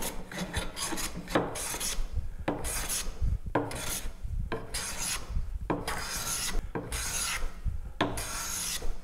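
Hand plane cutting shavings from an oak board in about eight steady strokes, roughly one a second, each a short rasping swish. These are the first passes that take the saw marks off the board's face.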